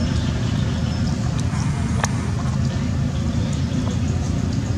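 Steady low rumbling noise, with a single sharp click about two seconds in.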